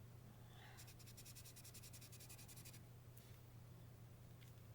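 Faint scratching of an art marker's nib on paper, quick back-and-forth strokes for about two seconds, over a low steady hum.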